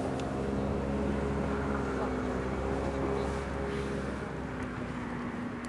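Steady engine drone with a low hum, loudest over the first couple of seconds and easing off after about four seconds.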